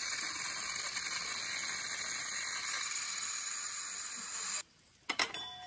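Camping gas escaping with a loud, steady hiss from a hose-fed camping stove, throwing off a cloud of vapour: a gas leak or uncontrolled gas release. The hiss cuts off suddenly after about four and a half seconds, and a few sharp clicks follow near the end.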